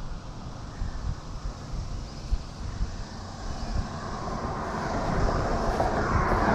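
A motor vehicle approaching, its road noise swelling steadily louder from about four seconds in. Under it there are irregular low thumps and rumble on the microphone.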